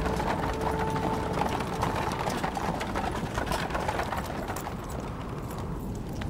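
Horses' hooves clip-clopping on packed dirt as a two-horse chariot draws up, the hoof beats thinning out near the end as it comes to a stop.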